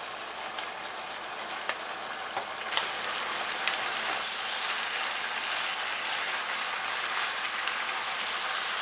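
Chicken with lemongrass paste frying in a pan, with chicken livers just added: a steady crackling sizzle with a few light clicks, growing louder about three seconds in.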